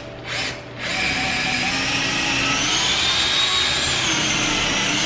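Power drill with a very sharp bit boring into soft wood: two short bursts, then a steady whining run from about a second in.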